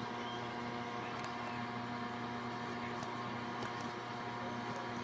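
Microwave oven running, a steady hum with a few faint clicks.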